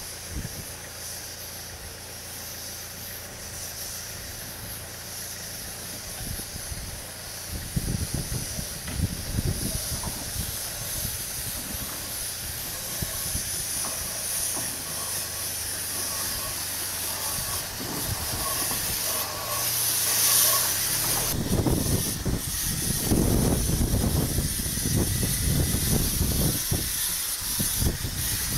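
Quarry Hunslet saddle-tank steam locomotive moving slowly and hissing steam, getting louder as it comes closer. A stronger gush of steam comes about two-thirds of the way through, and irregular low thuds grow heavier near the end.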